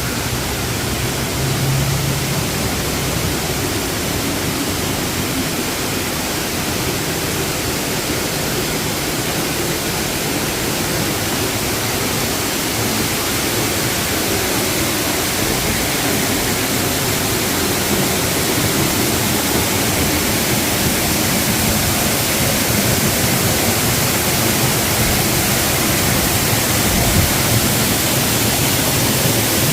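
Dry Falls waterfall on the Cullasaja River: the steady, loud rush of falling water, an even hiss that does not let up.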